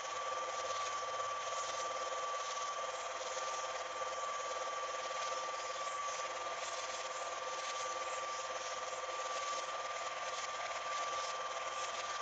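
Film projector running: a steady whir with a constant high whine and a fine mechanical rattle.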